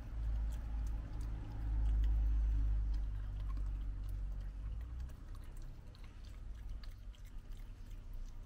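Raccoon chewing a dog biscuit: faint, scattered crunching clicks. A low rumble is the loudest sound for about the first five seconds, then fades.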